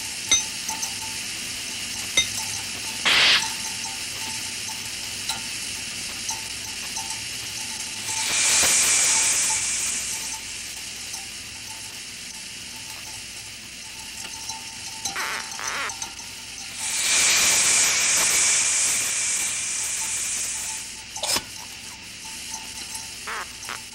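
Hissing from a laboratory rig of glass flasks, hoses and a metal canister as gas is let through it, with a low hiss throughout and two long, louder hisses about 8 and 17 seconds in. A few short glass clinks and knocks fall in between.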